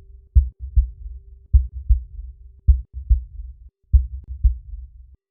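Deep double thumps in a heartbeat rhythm, a pair a little more than once a second, over a steady low tone that stops about halfway through.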